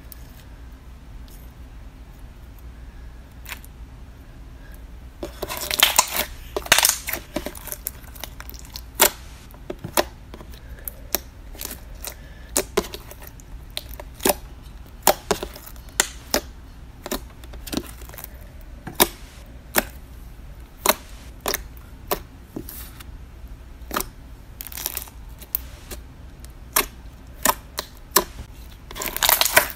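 Slime being squeezed and poked by hand, giving off sharp crackling pops and clicks from trapped air, irregular at one or two a second, with dense bursts about five seconds in and again near the end.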